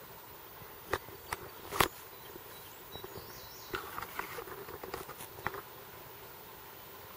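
Outdoor background hiss with a handful of short, sharp clicks and taps scattered through it, most of them around the first two seconds and again around four to five and a half seconds in.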